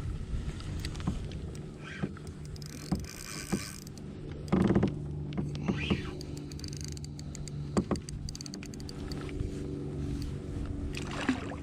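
A Shimano Stradic spinning reel being cranked to bring in a hooked redfish, giving a steady low whirring hum, with scattered clicks, knocks and small water splashes around the kayak and a louder splash or knock about four and a half seconds in.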